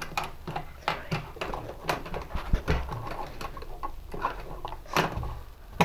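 Plastic makeup cases, tubes and brushes clicking and knocking on a wooden tabletop as hands feel among them, a dozen or so irregular taps.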